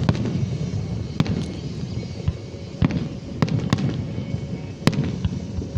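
Aerial fireworks bursting: several sharp bangs at irregular intervals over a constant low rumble of more distant explosions.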